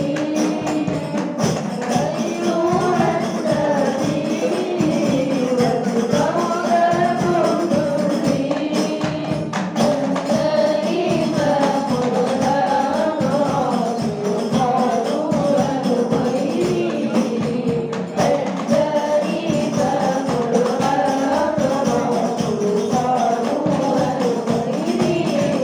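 Hadroh performance: voices singing a sholawat over hand-beaten rebana frame drums keeping a steady, busy rhythm.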